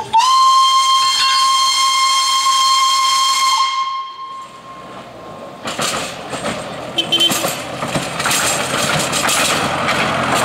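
Narrow-gauge steam locomotive's whistle blowing one long, steady note for about five and a half seconds, then a hiss of steam to the end.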